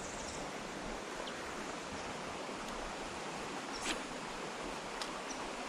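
Steady rush of a shallow, rocky creek running, with a couple of faint clicks about four and five seconds in.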